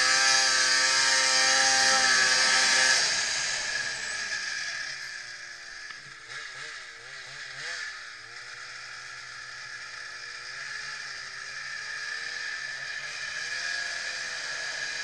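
2003 Polaris RMK 800 Vertical Edge snowmobile's two-stroke twin engine running under throttle, then backing off about three seconds in and settling to a lower, wavering note.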